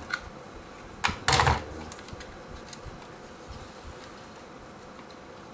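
Hands handling the plastic and metal parts of an RC truck's chassis and drivetrain: a few small clicks, with a louder, brief clatter about a second in, then only faint ticks.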